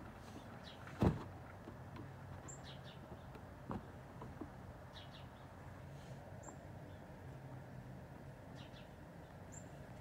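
Northern cardinal giving short, sharp, high chip calls, a handful of them spaced a few seconds apart, over a low steady background hum. A single thump about a second in is the loudest sound.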